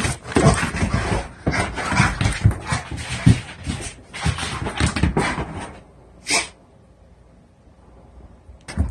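Blue pit bull giving a quick, excited string of short whines and barks, which breaks off about six seconds in, with one last short one a moment later. It is his way of saying he needs to go out to relieve himself.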